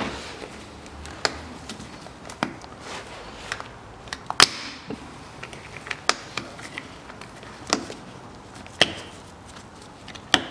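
Sharp, irregular clicks and knocks of hard plastic being handled, about eight of them, the loudest a little over four seconds in, as a gloved hand works the cap of a 5-litre plastic motor-oil jug.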